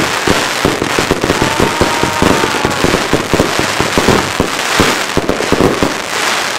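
ChinaRed Bulldozer 116-shot compound firework cake firing a dense rapid volley of bangs mixed with crackling, several shots a second, which stops abruptly near the end.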